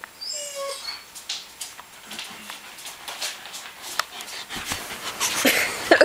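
Afghan hound giving a brief high-pitched whimper, then scattered clicks and rustling that grow louder toward the end.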